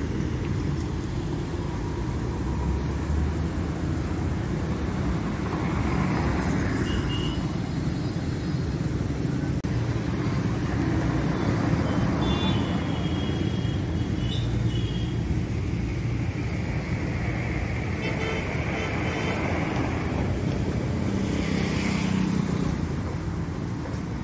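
Royal Enfield Classic 350's single-cylinder engine idling steadily, heard at its exhaust.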